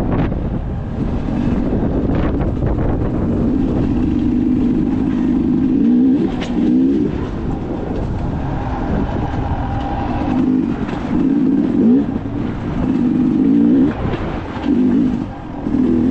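Off-road motorcycle engine running under way, its pitch repeatedly climbing and dropping as the rider opens and closes the throttle.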